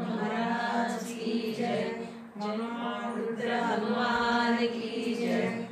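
A group of voices chanting a devotional prayer in unison, in long, held notes on a steady pitch, with a short pause for breath about two seconds in.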